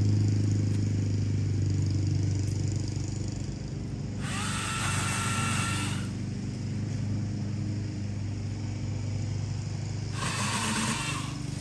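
Battery-powered Milwaukee Quik-Lok pole saw running in two short bursts a few seconds apart as it cuts branches. Each burst is a whine that rises as the motor spins up, the first under two seconds and the second about a second long. A steady low motor drone runs underneath.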